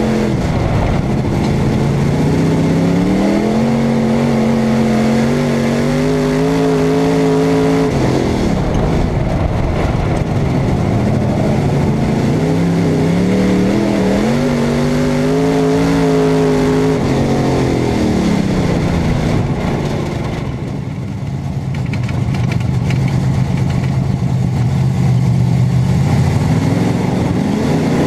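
Super stock dirt-track race car's V8 engine heard from inside the cockpit, revving up through the straightaways and dropping off as the driver lifts for the turns, twice. It then runs at a lower, steadier pitch with a brief lift about three-quarters of the way through, and starts rising again at the end.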